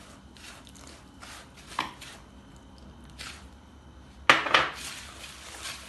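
A hand rubbing and squeezing ground biscuit crumbs with melted butter in a mixing bowl, a soft, irregular rustle of strokes. A sharper clatter about four seconds in.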